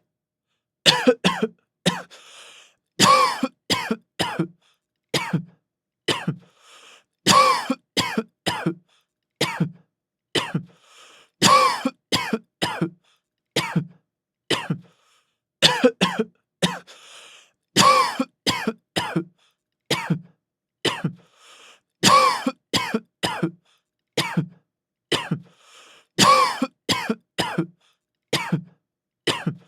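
A man coughing severely, in repeated fits of several quick coughs, each fit followed by a quieter drawn-in breath, the pattern coming round about every four seconds.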